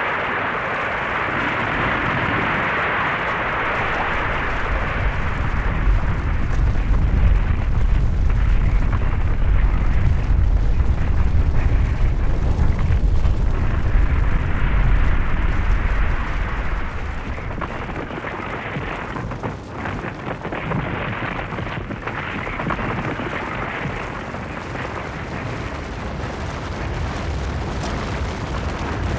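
Snow and rock avalanche: a continuous rushing rumble. The deep rumble swells from about six seconds in and eases after about sixteen seconds to a lighter, steady rush.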